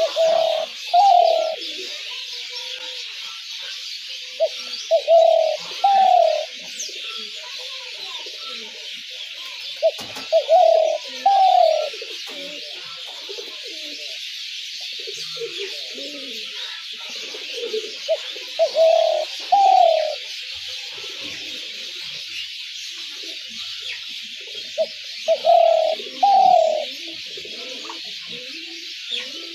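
Spotted dove cooing: five loud phrases of two or three short coos each, coming about every six to seven seconds, with fainter, lower coos between them. A steady high hiss runs behind.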